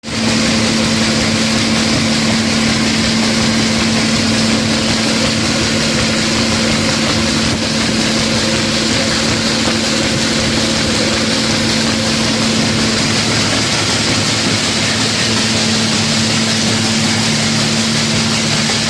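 Flour mill grinder (atta chakki) running steadily: a constant hum with one steady low tone over a dense grinding rush. It starts right at the beginning and keeps an even level throughout.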